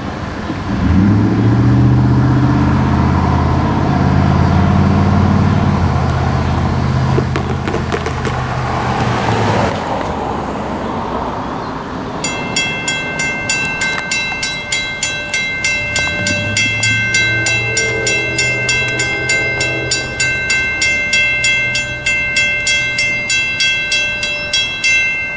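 Mechanical railroad crossing bell (Western Cullen Hayes) begins ringing about halfway through, in rapid, even strikes, as the crossing activates for an approaching train, and stops near the end. Before it, a low engine drone swells and fades over the first ten seconds, and a distant train horn chord sounds beneath the bell for a few seconds.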